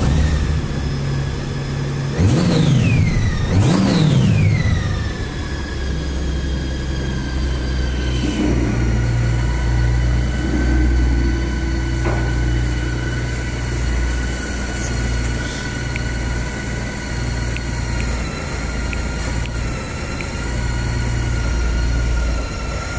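Honda Gold Wing's flat-six engine blipped twice, about two and three and a half seconds in, with the pitch dropping back after each, then idling steadily. It runs now that the loose tip-over sensor that was cutting power to the fuel pump has been bolted back in place.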